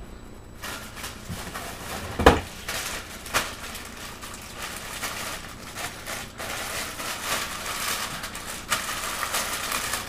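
Handling noise in a cardboard shipping box: a sharp knock about two seconds in and a few lighter clicks, then a plastic packaging bag crinkling and rustling from about six seconds on.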